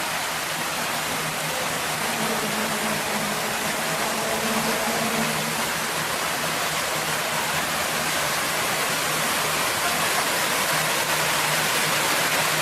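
Fountain water splashing and rushing in a steady stream, growing slightly louder toward the end.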